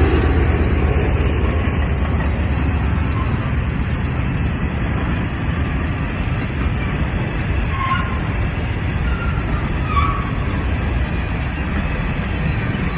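Freight train of loaded grain hopper cars rolling steadily past, a loud, even rumble of wheels on rail, with a few brief high squeaks about halfway through.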